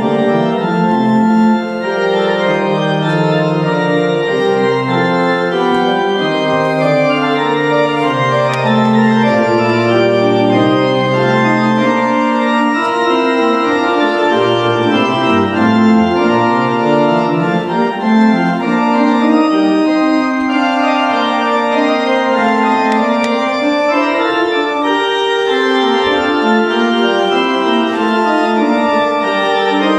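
Church organ playing an opening prelude of slow, sustained chords over a moving bass line.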